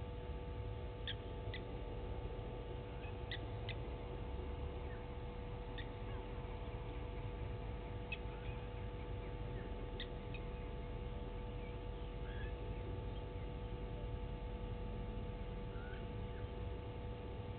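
Outdoor waterhole ambience: a steady low rumble and hum, with faint, short high chirps from small birds every second or two.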